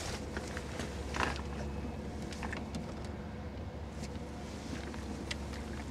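Steady low hum of a boat's electric trolling motor, with scattered light clicks and a couple of short rustles as a small smallmouth bass is swung into the boat and handled.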